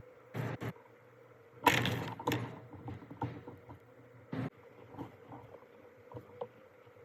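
A series of short knocks and clatters of hard objects being handled, the loudest cluster about two seconds in, then fading to a few light ticks.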